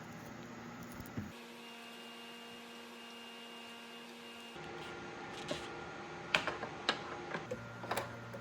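Honda Z50 kickstand being swung on its newly riveted, greased pivot: a run of sharp metallic clicks and knocks over the second half, over a low steady hum.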